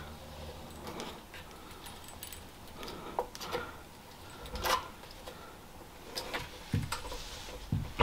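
Light clicks and taps of a metal-and-plastic air-compressor pressure switch being handled and fitted onto its fitting on the tank, with one sharper knock about halfway through.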